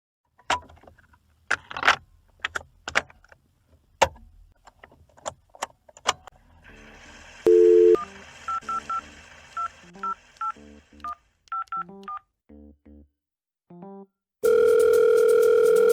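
A phone call being placed: a series of clicks from the handset being handled, then a string of short keypad beeps as a number is dialed. Near the end comes a loud ringing tone lasting about two seconds.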